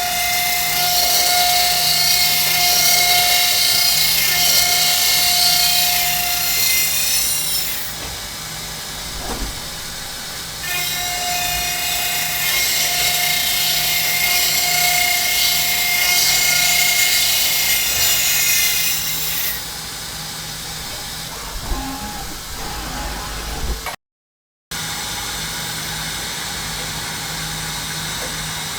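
An 80 mm carbide slitting saw on a Hermle C400 CNC machining centre cutting a slot into aluminium, dry. There are two cutting passes of about eight seconds each, with a high hiss and a steady whine. Between and after them the machine runs more quietly.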